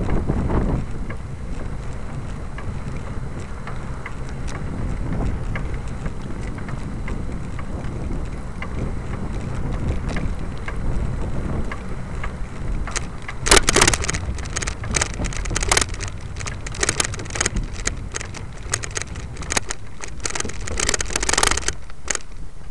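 Wind buffeting the microphone of a moving camera: a steady low rumble. About halfway through, a run of rapid sharp clicks and rattles comes in and stops shortly before the end.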